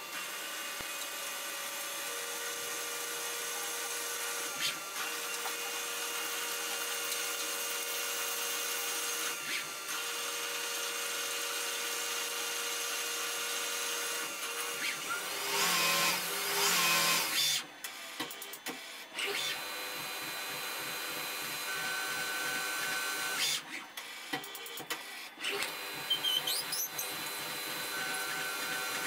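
Tormach CNC lathe machining bar stock, sped up fourfold: a steady machine sound with thin high whining tones and coolant spray, a louder, rougher stretch a little past halfway, and a drill boring into the part near the end.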